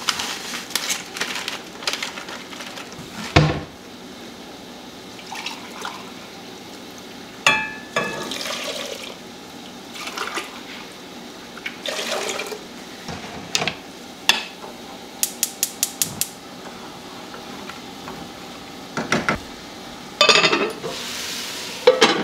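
Cooking at the stove: water poured from a glass pitcher into a pot, among clinks and knocks of pots, lids and utensils. A quick run of about six clicks comes about two-thirds of the way through, and a lid knocks onto a pot near the end.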